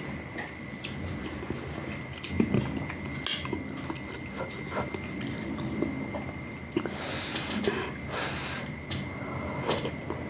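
Close mouth sounds of eating rice noodle soup: wet slurping and chewing with scattered small clicks, and two longer slurps about seven and eight seconds in.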